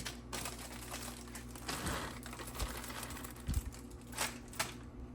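Plastic microwave bag of peas and carrots crinkling as it is handled and emptied, with a few light knocks.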